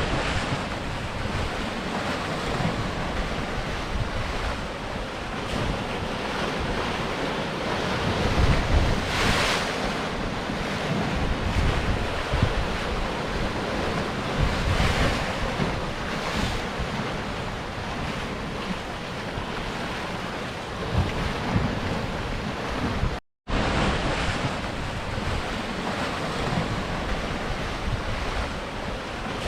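Sea surf washing against rocks in a continuous rush, with louder waves crashing about 9 s and 15 s in. Wind buffets the microphone with an unsteady low rumble, and the sound cuts out for a split second about two-thirds of the way through.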